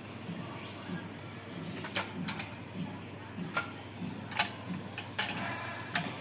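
Irregular sharp clicks and snaps from stringing a badminton racket on a manual stringing machine, about six in all, the loudest past the middle, with a brief rising zip near the start. A low pulse repeats about twice a second underneath.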